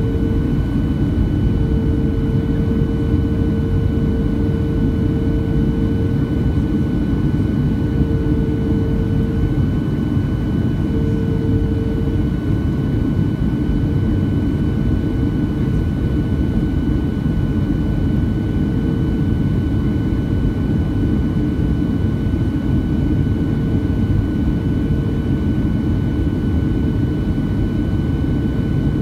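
Steady cabin noise inside a Boeing 737-700 on approach: a deep rush of airflow and its CFM56-7B jet engines, with two faint steady high tones and a lower hum that fades in and out.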